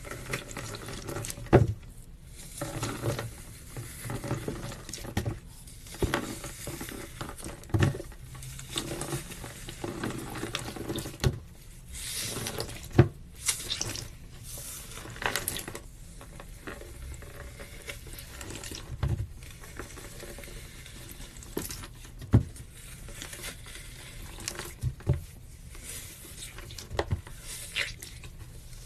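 Slime being pressed and kneaded by hand: wet, sticky squelching with irregular sharp clicking pops.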